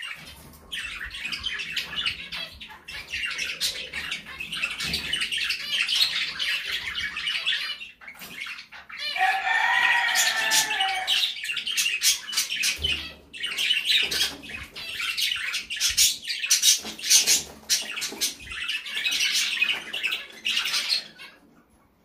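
Budgerigars chattering: dense rapid chirps and clicks, with a longer wavering warble about ten seconds in.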